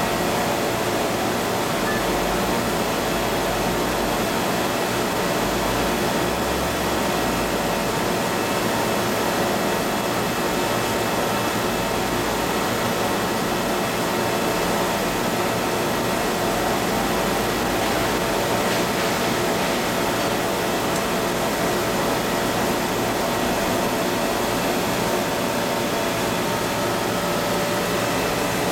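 PVC shrink film blowing machine running: a steady whir of its air blowers and motors, with a few constant hum tones over it.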